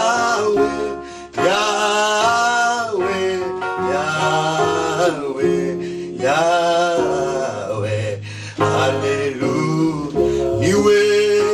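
Two men singing a gospel worship song in long, sliding phrases over acoustic guitar accompaniment.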